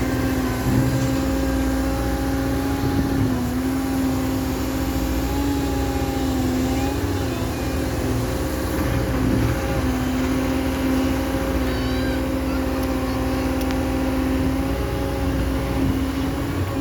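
CAT M315F wheeled excavator's diesel engine running at working speed with a steady humming tone that sags briefly a few times and recovers as the machine takes load.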